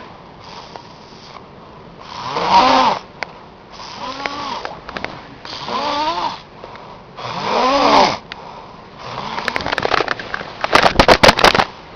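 A person snoring loudly, five long noisy snores about one every one and a half to two seconds, each with a pitch that rises and falls. Near the end comes a burst of sharp crackles, the loudest thing heard.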